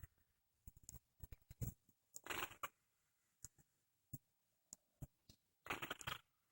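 A person snoring: two short, noisy snoring breaths about three and a half seconds apart, with faint small clicks between them.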